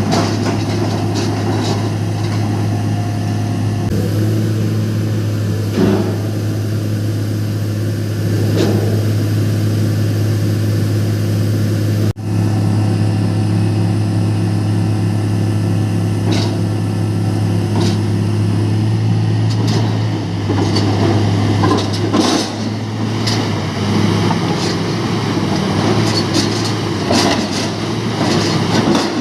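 Diesel engine of a MAIT HR180 rotary piling rig running steadily with a deep drone while boring, with occasional sharp knocks.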